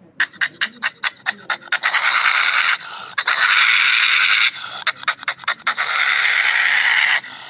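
Breathy animal panting and hissing: a quick run of short puffs, about seven a second, breaks into long hisses, with a second run of puffs midway, and the hissing cuts off shortly before the end.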